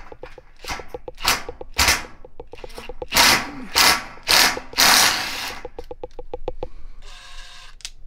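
Cordless drill working a screw on a fluorescent light fixture overhead: rapid clicking with several short, loud bursts of the drill, then a brief whine of the motor near the end.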